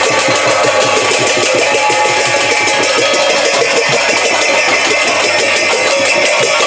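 Devotional kirtan music: a fast, steady beat of hand cymbals and drums over a sustained drone.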